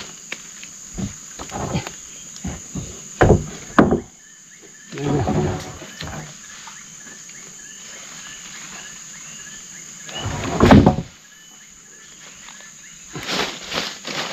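Steady buzz of forest insects with a few knocks and thuds, the loudest a heavy thud about ten and a half seconds in, and a brief grunt or voice about five seconds in.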